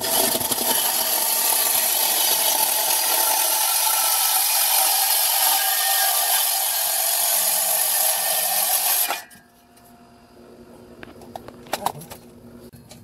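Cordless reciprocating saw cutting through the car's old exhaust pipe: a loud, steady, high-pitched cutting noise that runs for about nine seconds and then stops suddenly.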